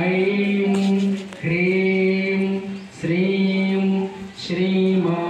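Mantra chanting for a kumkumarchana, the worship of the goddess with kumkum, in short phrases held on a nearly level pitch. Each phrase lasts about a second and a half, with a brief break before the next, four in all.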